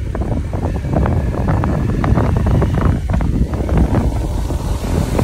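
Wind buffeting the microphone on a moving motorbike, a loud ragged rumble over the sound of the ride.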